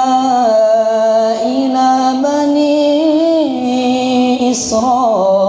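A boy's voice reciting the Qur'an in melodic tajwid style through a microphone, holding long drawn-out notes that step and glide between pitches with ornamented turns.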